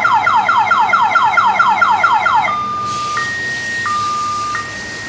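Electronic alarm siren set off by a motion-sensor light, sounding a fast falling whoop about four times a second. About halfway through it switches to a two-tone high-low wail, each tone held for under a second.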